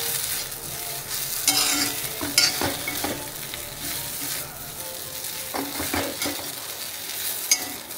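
Idli pieces frying in oil and ghee in a pan, sizzling steadily, with a spatula stirring and scraping through them every second or so.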